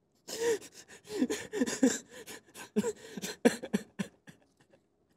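A man laughing breathily under his breath, in a run of short, irregular gasps, each ending in a brief voiced sound that falls in pitch.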